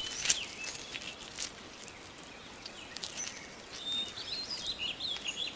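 Faint outdoor nature ambience: a low steady hiss with scattered small ticks, and a few short high chirps in the second half.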